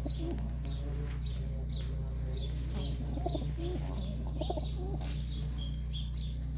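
Serbian Highflyer pigeons cooing in low, bending calls, with many short high chirps from small birds over a steady low hum.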